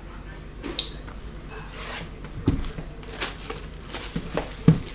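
Knife slitting and tearing the plastic shrink wrap off a trading-card hobby box: a scratchy rip and crinkles, with several sharp clicks and knocks of the box being handled, the loudest near the end.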